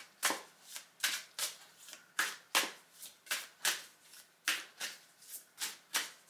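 A deck of tarot cards being shuffled by hand, the cards sliding and slapping together in short, even strokes about three times a second.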